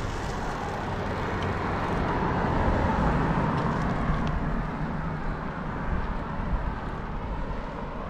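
Steady rush of wind and road noise while a bicycle is ridden, swelling a little in the middle.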